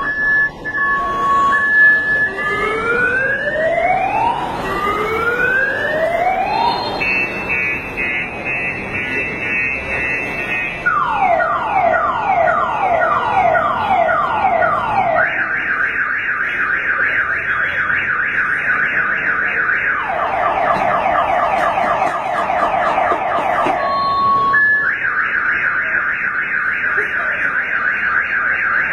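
Car alarm siren sounding continuously and cycling through its tones: a two-tone alternation, three slow rising whoops, a steady trill, then rapid falling chirps and fast warbles, returning to the two-tone near the end.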